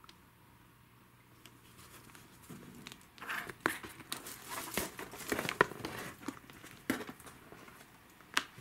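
Plastic sheeting crinkling and claws scratching on a cardboard box as a Norwegian Forest Cat scrambles up over the box's rim, a busy run of rustles and scratches from about two and a half seconds to seven seconds in. A single sharp click comes near the end.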